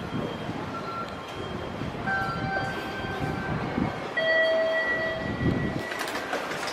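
Train station concourse ambience: a steady low rumble of the hall, with several held electronic chime tones sounding one after another, the loudest about four seconds in.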